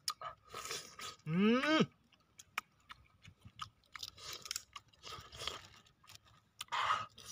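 A man chewing and crunching raw shrimp, with small crackles and clicks from the food and the plastic bag being handled. About one and a half seconds in he lets out a short vocal exclamation that rises and then drops in pitch.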